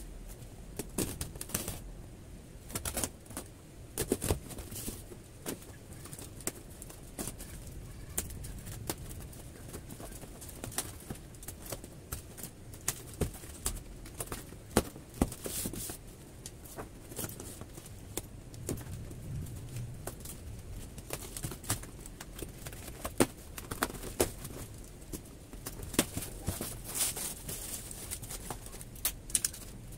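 Packing tape being peeled off a cardboard shipping box and the box flaps handled: irregular sharp crackles and clicks. Near the end, plastic-wrapped contents rustle as a hand reaches in.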